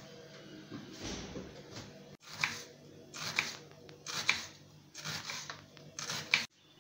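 Kitchen knife slicing a red onion on a wooden cutting board: about five slow, evenly spaced cuts roughly a second apart, each a short crisp crunch ending in a knock of the blade on the board.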